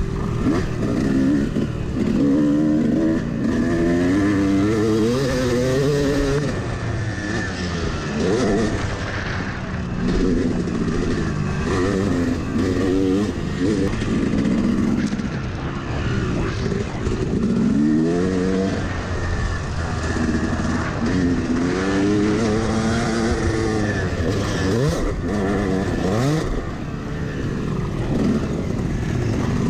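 Yamaha 250 two-stroke dirt bike engine under hard riding. The revs climb and drop over and over as the rider accelerates, shifts and backs off around the track.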